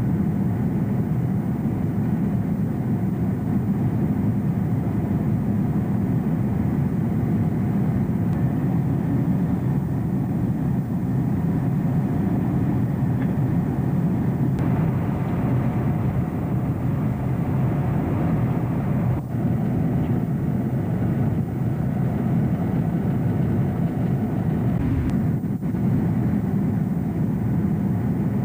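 Airliner cabin noise in flight aboard a Boeing 747: a steady, low rush of airflow and engine noise.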